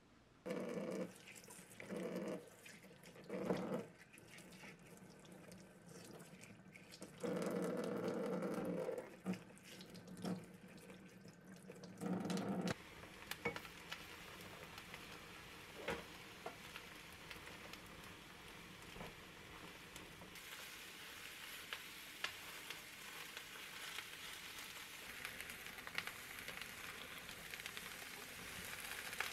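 A few short bursts of a steady rushing noise in the first half, then eggplant pieces sizzling in a frying pan and being stirred with a spatula, with light scrapes and clicks over the sizzle; the sizzle grows louder for the last third.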